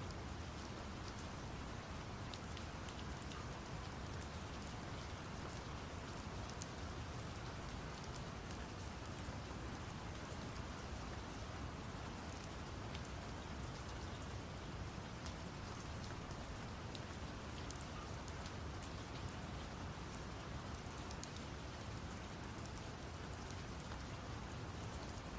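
Steady rain with many scattered drop ticks, over a constant deep brown-noise rush.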